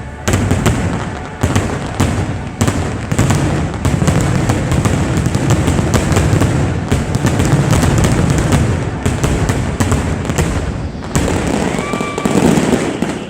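Dense barrage of fireworks: many bangs and crackles in rapid succession over a continuous low rumble of bursts.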